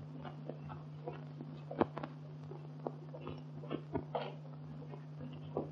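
Faint, steady low hum of an early-1930s film soundtrack with scattered, irregular clicks and crackle, and no dialogue.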